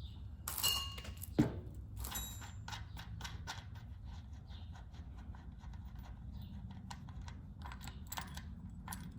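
Axle nut and brake arm being worked off a bicycle rear axle: light metallic clicks and clinks, with one louder ringing clank about a second and a half in.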